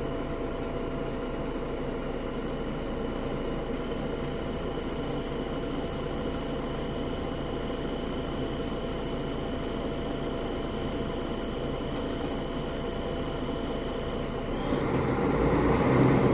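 Mercedes-Benz O530G Citaro G articulated bus heard from inside the passenger saloon, the engine idling steadily with several steady high whines over it. Near the end the whines cut off and the engine grows louder.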